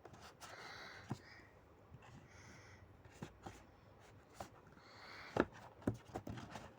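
Items being handled during an unboxing: scattered taps and clicks with soft rustling of packaging, the loudest knocks about five and a half to six seconds in.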